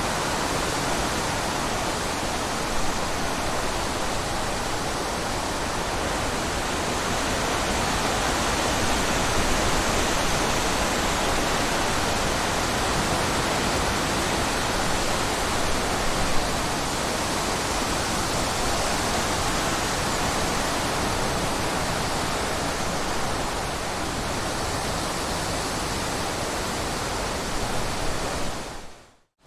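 Steady rushing of running water, an even dense hiss without a beat or melody, that drops out abruptly just before the end.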